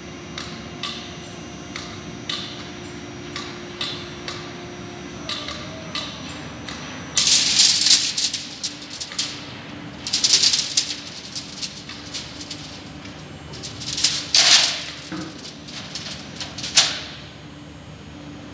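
Steady machinery hum in an industrial shop, with a string of sharp clicks and rattles about once a second and several loud bursts of hissing noise.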